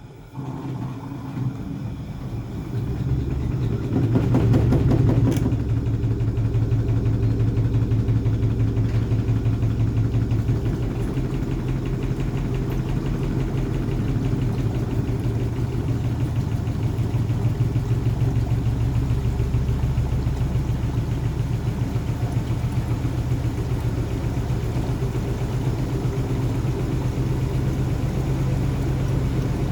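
Gorenje WaveActive front-loading washing machine in an interim spin: the motor and drum build up over the first few seconds, then run steadily with a fast, even beating. The load is unbalanced and the machine is jumping, with excess suds holding back the spin.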